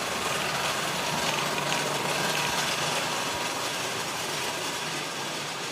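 Steady mechanical background noise of an engine machine shop, an even hum and hiss with no distinct knocks or tones.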